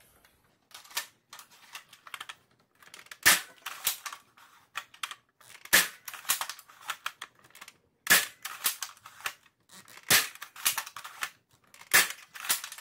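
Spring-powered Nerf Longshot with a Jet Blaster Omni kit firing Elite foam darts through a chronograph: five sharp shots about two seconds apart. Between the shots come quieter clacks as the bolt is worked to prime it again.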